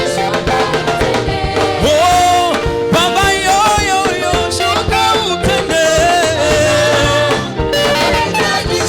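Upbeat church praise music from a live band: a steady drum beat and bass under a sliding lead melody.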